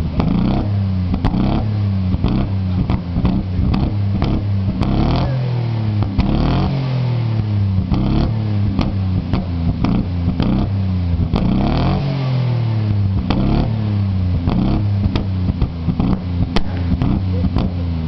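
Twin-turbo Ford Sierra XR4x4 V6 engine being blipped over and over, its pitch rising and falling about once a second, with sharp exhaust cracks and pops throughout: a misfire that is throwing flames from the exhaust.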